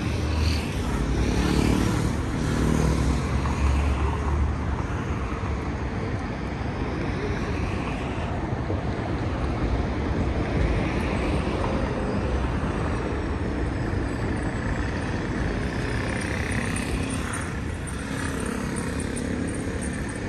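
Road traffic on a city avenue: cars and a bus passing, a steady rumble of engines and tyres, a little louder in the first few seconds.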